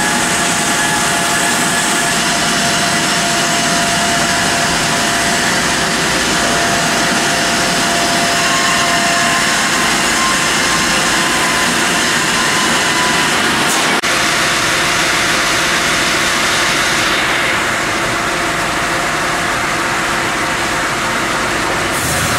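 Sawmill machinery running: a loud, steady hissing din with faint steady whines in it. The sound changes abruptly about two-thirds of the way through and again near the end.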